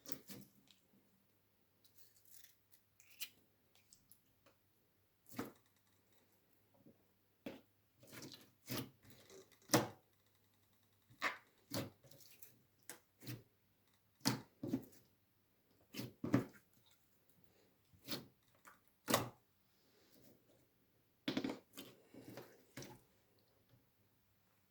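Slime being handled and squished, making irregular short clicks, pops and crackles, some in quick clusters.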